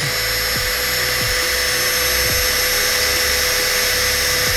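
Makita 18V cordless drill running at a steady speed, its bit drilling out a rivet on a plastic bumper's mounting bracket; a steady, high whine.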